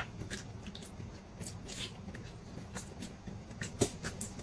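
Faint chewing and mouth sounds of someone gnawing on a soft, chewy pig's trotter: scattered small clicks and wet smacks over a low steady hum.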